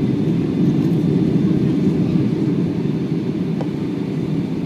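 Steady low roar of cabin noise inside a Boeing 757-200 airliner on final approach, with its landing gear down and full flaps set: airflow and engine noise with no distinct events.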